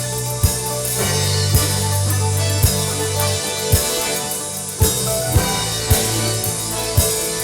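Worship band playing the instrumental intro of a gospel praise song: a drum kit keeps a steady beat under sustained bass and keyboard chords, with no singing yet.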